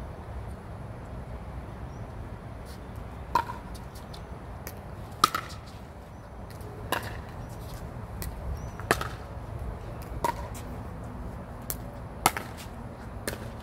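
Pickleball paddles hitting a plastic ball back and forth in a rally: sharp pocks about every two seconds, with a few fainter taps between, over a steady low rumble.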